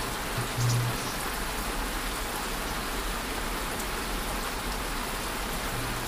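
A steady, even hiss like light rain, with a brief low hum about half a second in.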